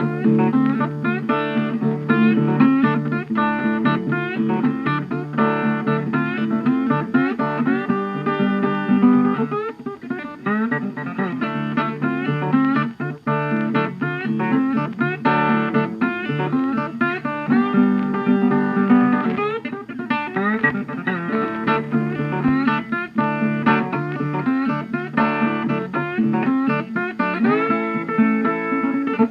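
Background music: plucked guitar, blues-style, with bass and a steady beat.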